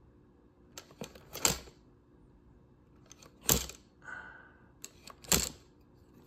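A few sharp clicks and taps from a Cessna 172 fuel level sender being pressed and jiggled by hand, worked to try to trigger its intermittent fault. The loudest clicks come about three and a half and five and a half seconds in.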